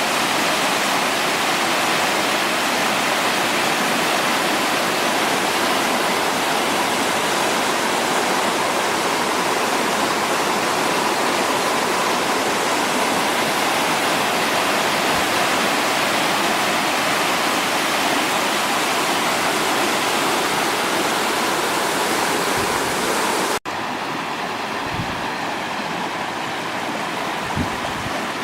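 Teteven waterfall rushing in a steady, loud roar of falling water. There is an abrupt cut about three quarters of the way through, after which it is slightly quieter, with a few low bumps near the end.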